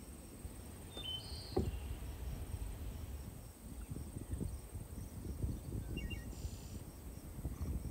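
Outdoor ambience: a steady high insect trill runs throughout, with a few short bird chirps about a second in and again near six seconds. Under it is a low, uneven rumble, which is the loudest part.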